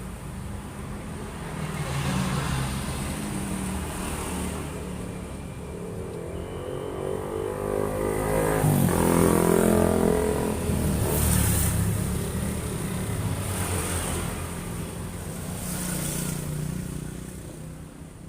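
A motor vehicle engine running, its pitch rising as it revs up a little past halfway, then settling, with a few short bursts of hiss later on.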